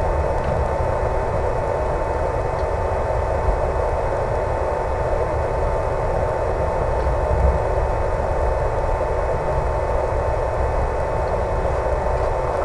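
HobbyZone Super Cub RC plane in flight: its electric motor and propeller give a constant mid-pitched whine over a steady rush of air, with low uneven rumbling.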